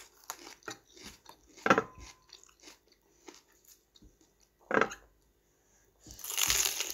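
Raw bitter gourd (ampalaya) being chewed with wet, crisp crunches, dotted with louder snaps as pieces are broken off or bitten. Near the end comes a longer, loud crunch as a fresh bite is taken from the gourd.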